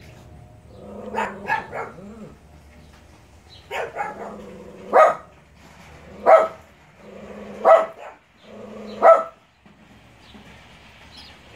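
Small dog barking: a quick run of three barks about a second in, two more near four seconds, then single barks about every second and a half.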